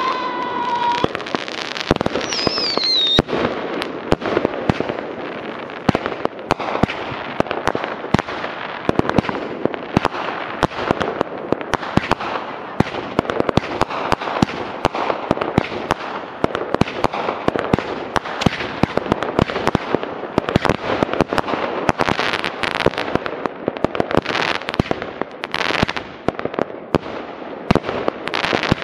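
Consumer firework cake (multi-shot compact) firing, with a dense run of crackles and pops throughout. There is a falling whistle about a second in and another shortly after.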